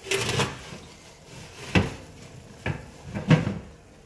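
Oven door being pulled open: a short rattle at first, then three sharp knocks over the next couple of seconds.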